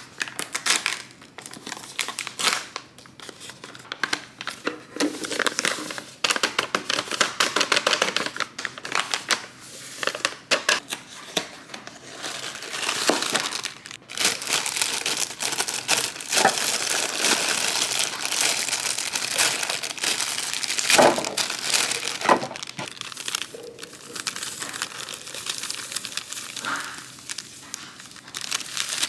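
Packaging crinkling and rustling in irregular bursts with small clicks as items are handled and unwrapped, busiest in the middle stretch.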